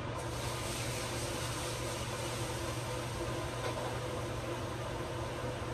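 Over-the-range microwave's vent fan running: a steady whoosh of air with a low hum.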